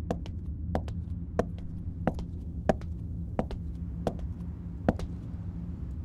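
Sharp ticks at a steady pace, about three every two seconds with fainter ticks between, over a steady low hum.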